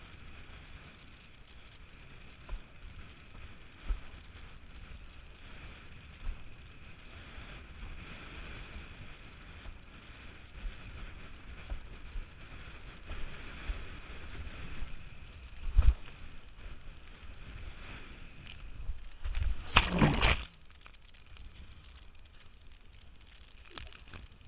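Wind buffeting a windsurf-mounted action camera's microphone, with water rushing and splashing around the board. There are scattered knocks, the loudest about 16 seconds in, and a louder rush of splashing and wind for about a second around 20 seconds, after which it goes quieter.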